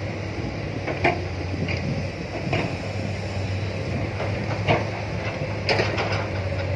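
Zoomlion crawler excavator's diesel engine running steadily as it works, swinging and dumping a bucket of earth into a dump truck's bed. Sharp clanks and knocks of the bucket and linkage sound several times over the engine.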